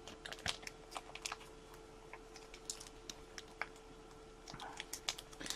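Faint, scattered light clicks and taps of trading cards and their plastic holders being handled, over a faint steady hum.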